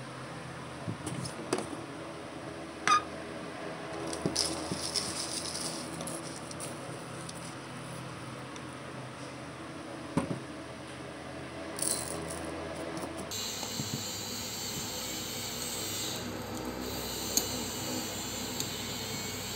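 Dry hamster seed mix rattling and rustling as it is scooped from a plastic jar with a metal spoon and poured into a small stainless steel bowl, with a few scattered clicks and clinks; the sharpest, a short ringing clink, comes about three seconds in. A faint steady hum lies underneath.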